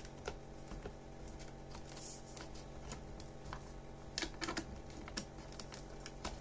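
Small irregular plastic clicks and taps from hands moving and posing plastic wrestling action figures on a clear plastic tube stand, over a faint steady hum.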